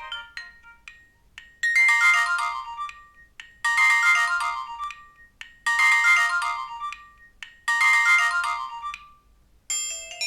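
Nokia 1616 'Clock alert 2' alarm tone playing: a chiming phrase of notes stepping downward, repeated four times about two seconds apart. Near the end it gives way to the 'Clock alert 3' tone, with ringing xylophone-like notes.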